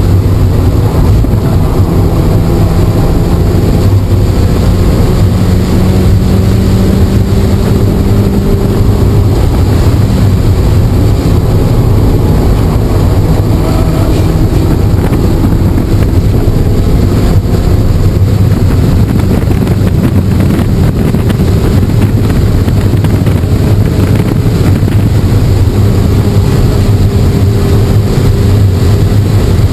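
Track car's engine running hard under load, heard from inside the cabin, with heavy wind and road noise. The engine pitch climbs slowly in long pulls, then drops back and climbs again.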